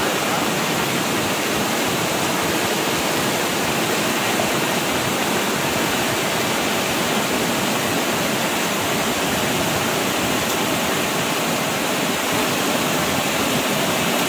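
Muddy floodwater rushing in a swollen, overflowing stream, a steady loud rush with no let-up.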